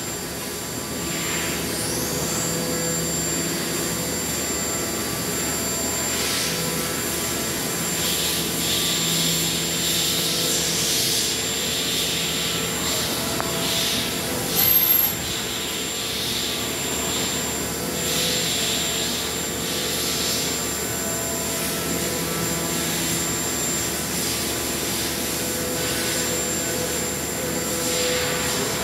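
Mazak VCU 500A 5X five-axis CNC vertical machining center running a cut, with a steady high whine over machine hum and the hiss of coolant spraying inside the enclosure that swells and fades. A brief, loud, high hiss comes about halfway through.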